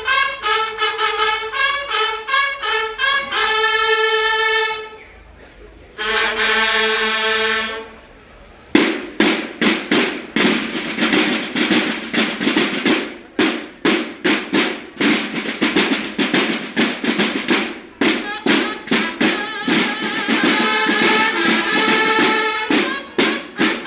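Mexican banda de guerra playing: bugles sound a run of short rhythmic notes, then a long held note and, after a short pause, a held chord. About nine seconds in, the snare drums come in with a fast, steady drumbeat, and the bugles rejoin over the drums near the end.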